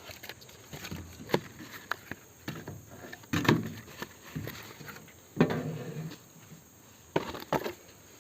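Sticks of firewood being handled and set down, knocking and clattering against each other at irregular moments, with the loudest clatters about three and a half and five and a half seconds in.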